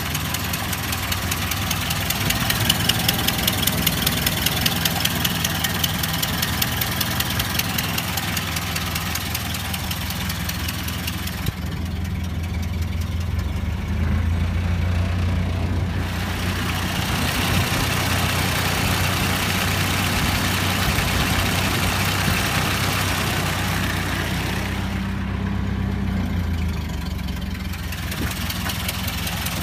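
Ford Model A's four-cylinder flathead engine idling with a pronounced rhythmic knock, the sign of a leaking exhaust gasket that had disintegrated at its rear end. Twice the clatter drops away for a few seconds while the engine note changes, then returns.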